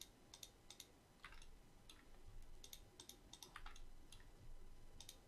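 Faint computer mouse clicks, about a dozen scattered irregularly, some in quick pairs, as faces are picked out one by one.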